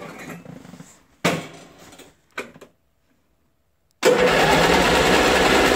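A few knocks and short rattles on the lawn tractor. About four seconds in, its Briggs & Stratton Vanguard 16 hp engine starts abruptly and runs loud and steady.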